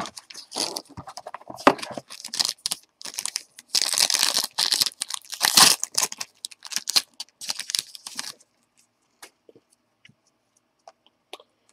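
Trading card pack and box being opened by hand: repeated tearing and crinkling of the wrapper and rustling of cards, in bursts. The handling stops about eight seconds in, leaving only a few faint taps.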